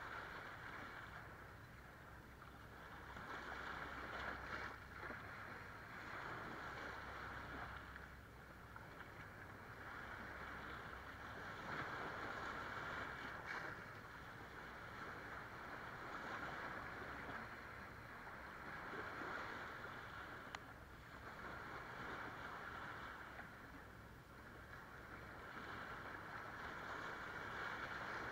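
Small waves breaking and washing over rocks and sand at the shoreline, the surf swelling and falling away every few seconds.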